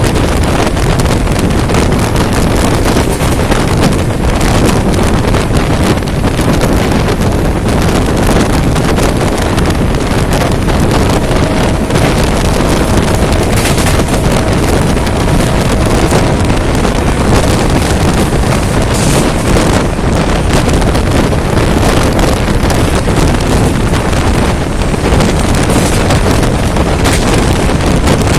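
Wind buffeting the microphone over the steady rumble of an express train running at speed, heard from aboard the train.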